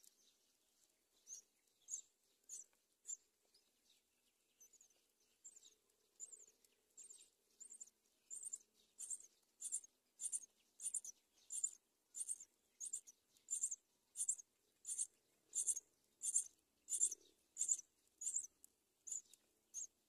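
Myna nestlings calling from the nest in short, high-pitched chirps. A few come at first, and from about eight seconds in they turn into a steady, louder series of about one and a half chirps a second.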